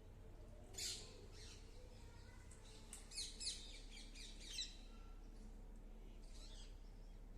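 Pet parrots chirping: a short high call about a second in, a quick run of chirps from about three to five seconds, and another call near the end.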